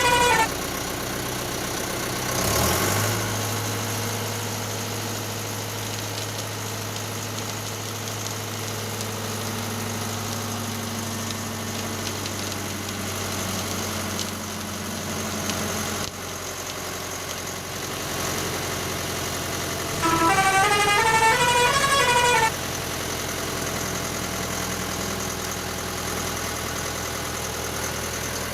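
Electronic toy-vehicle sound effects: a steady synthetic engine hum, broken about twenty seconds in by a two-second burst of a quickly rising-and-falling siren.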